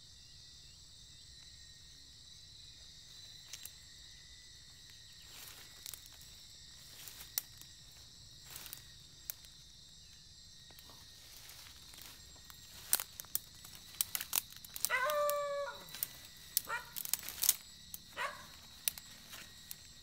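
Leaves and twigs rustling and snapping as someone pushes through forest undergrowth by hand, sparse at first and busy in the second half, over a steady high drone of insects. In the second half a dog gives a few short yelps.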